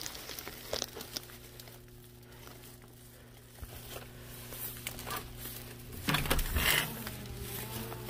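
Carried bags crinkling and rustling, with small clicks and knocks, as a hotel room door with a key-card lock is opened; the loudest rustle comes about six seconds in. A steady low hum runs underneath.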